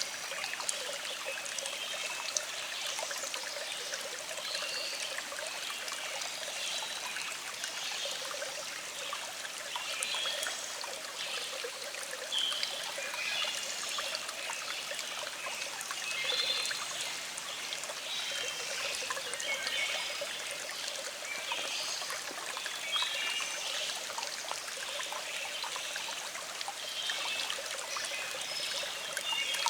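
A small stream trickling and burbling steadily over rocks, with birds chirping in the background.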